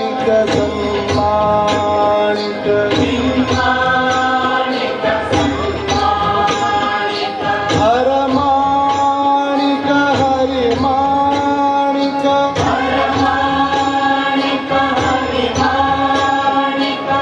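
Indian devotional song with voices singing a slow, chant-like melody in long held notes over steady percussion.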